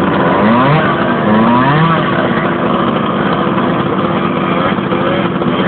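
Motocross bike engine revving hard, its pitch rising and falling in quick blips during the first two seconds and then running on more steadily, as the bike is pushed and ridden through a muddy rut.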